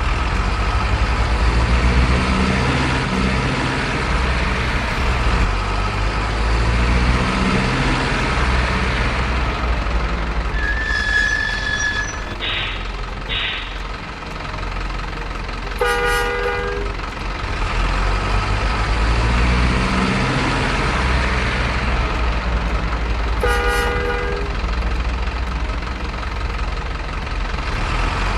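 Heavy truck engines rumbling as trucks run by, with a few short high beeps and then two short horn blasts, the second about seven seconds after the first.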